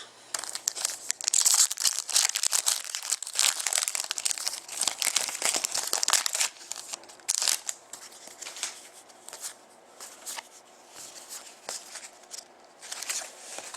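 Trading cards and their pack wrapper being handled: quick rustling and crinkling with small clicks as cards are slid and flipped. The handling is busy for about the first six seconds, then thins to occasional soft rustles and ticks.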